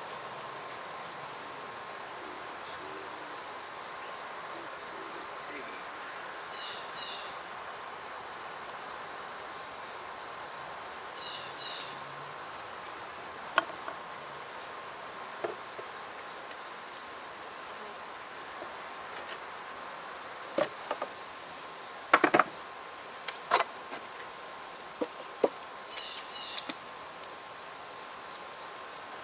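A steady high-pitched chorus of singing insects, with scattered knocks and clatter of wooden hive boxes and lids being handled, the loudest cluster about three-quarters of the way through.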